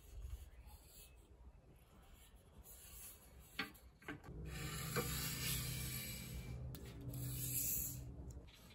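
Hands rubbing against an aluminum extrusion profile. Faint handling sounds at first, then a steady rubbing noise from about four seconds in that lasts about four seconds.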